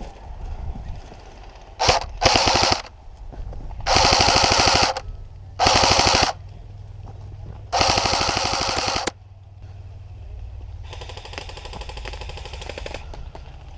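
Airsoft electric guns firing in rapid full-auto bursts: five loud bursts in quick succession, then a longer, fainter burst near the end.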